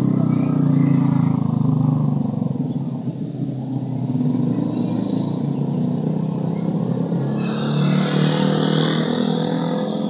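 A motor vehicle engine running steadily, loudest in the first two seconds, easing off a little around the middle and picking up again near the end.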